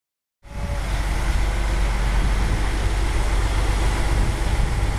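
Steady low engine rumble and street noise, cutting in abruptly about half a second in.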